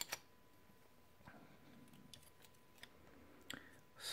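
Near silence with a few faint clicks and ticks from handling the plastic and metal parts of a cassette deck's tape mechanism, the loudest cluster right at the start.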